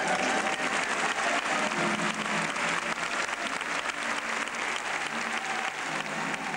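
Audience applauding, a dense continuous clapping, with background music faint beneath it.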